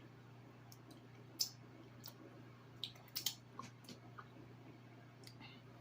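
Faint mouth and eating sounds: a few soft clicks and wet smacks, with a steady low electrical hum behind.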